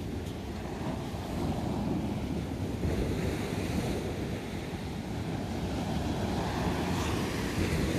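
Surf breaking and washing up the beach, a steady rush of waves that swells about three seconds in and grows louder near the end, with wind buffeting the microphone.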